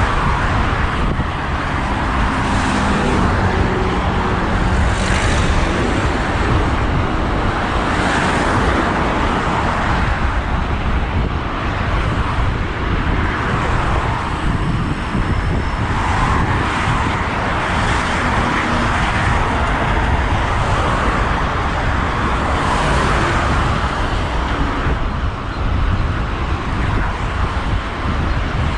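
Road traffic noise: cars passing every few seconds on a busy main road, heard from a moving bicycle, over a steady rumble of wind and road noise.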